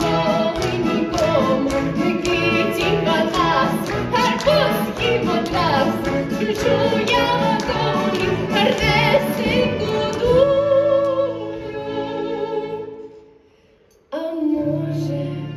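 A woman singing a lively song on stage over instrumental accompaniment with a steady beat. The song ends on a held note about ten seconds in and fades almost to silence, then a low sustained chord starts near the end.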